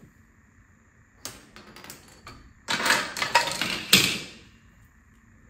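Hevesh5 plastic dominoes toppling in a chain reaction across two domino bridges on a hard floor: a few scattered clicks, then a dense rapid clatter for about a second and a half, ending in the loudest clack as the last pieces fall.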